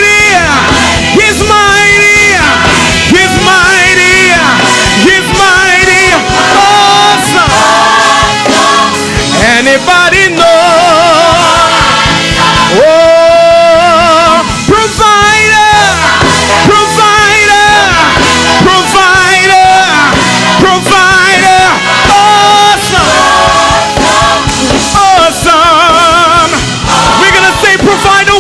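Gospel praise singing with band accompaniment: a lead voice singing long, wavering notes with strong vibrato.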